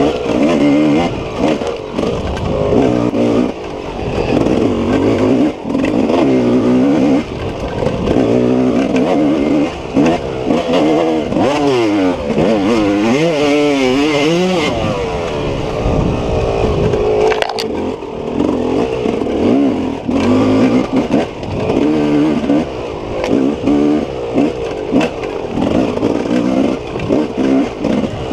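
Off-road racing dirt bike engine ridden hard. The engine pitch climbs and drops again and again as the throttle opens and closes, and it wavers quickly up and down about halfway through.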